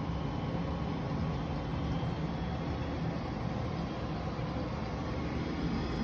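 Navien NCB combi boiler's combustion blower and gas burner running steadily at a low firing rate, a steady low hum and rush as the boiler begins to ramp up its heat output.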